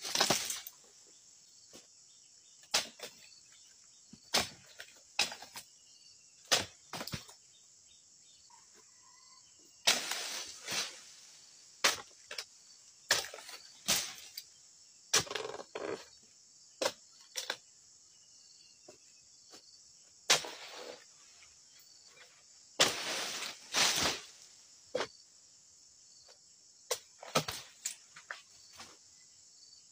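Irregular sharp chopping strikes of a long-handled harvesting chisel cutting frond bases and fruit bunches from a young oil palm, a few of them longer and noisier. Insects buzz steadily at a high pitch underneath.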